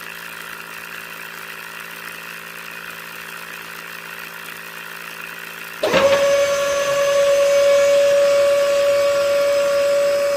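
A faint steady hum. About six seconds in, a small electric DC motor switches on and runs at a steady, high-pitched whine.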